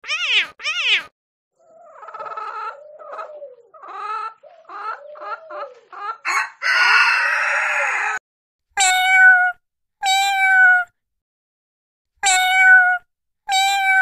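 Domestic cat meowing repeatedly in short, varied calls, with a longer, rougher, noisier cry about halfway. It then gives four longer calls, each held at a steady pitch, in the second half.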